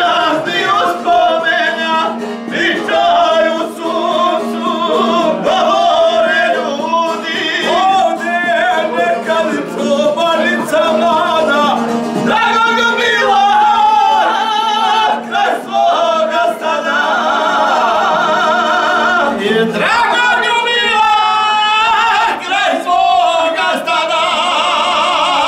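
Several men singing a South Slavic izvorna folk song together in loud close harmony, with fast shaking ornaments on the held notes.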